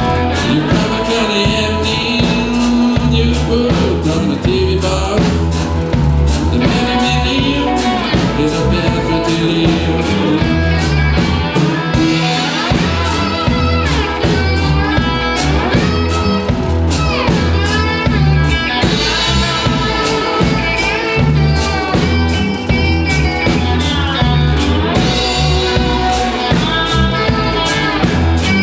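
Live blues band: electric cigar box guitars over a drum kit, with gliding notes in the middle.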